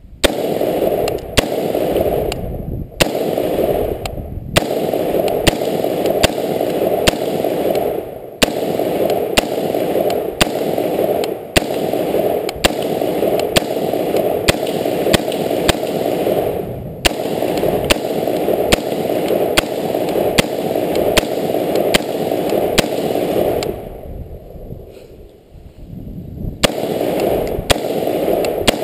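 Gunshots fired one after another at about one to two a second over a steady rushing noise, with brief pauses and a longer lull of a couple of seconds about three-quarters of the way through before the firing resumes.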